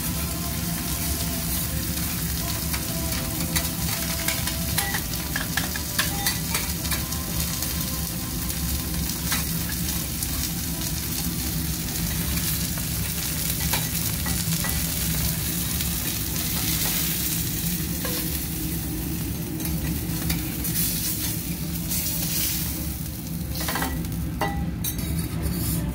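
Kobe beef sizzling on a steel teppanyaki griddle, a steady frying hiss, with metal spatulas clicking and scraping on the plate now and then, most often near the end. A steady low hum runs underneath.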